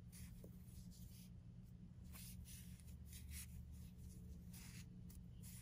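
Faint, irregular soft rustles of DK cotton yarn being drawn over a wooden crochet hook and the fingers while double crochet stitches are worked, over a low steady hum.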